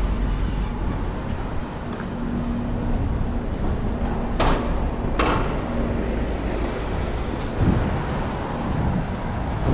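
Street traffic: vehicles running and passing, with a steady engine hum and two short hisses, under a second apart, about halfway through.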